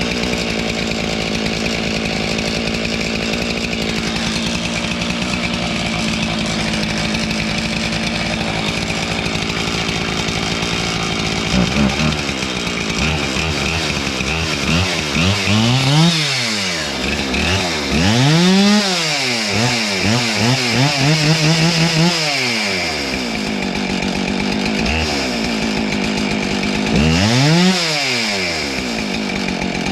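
Husqvarna 576 X-Torq chainsaw, running with its freshly welded and refitted muffler. For about eleven seconds it holds a steady high engine pitch, then it revs up and down again and again.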